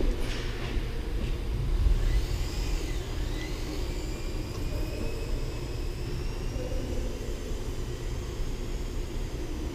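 Small electric motor and propeller of a micro RC airplane whining as it flies past, its pitch swinging up and down about two to three seconds in, then holding a steady high whine that slowly rises. A low steady rumble runs underneath.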